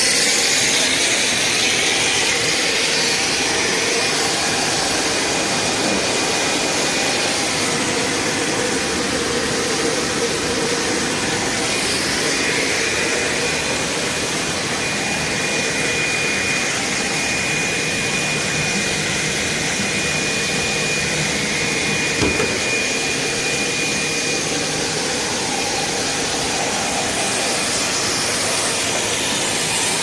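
Spiral vacuum-cleaner hose extrusion line running: a steady mechanical hiss and hum from its motors, with a faint high whine through the middle and a single knock a little past two-thirds in.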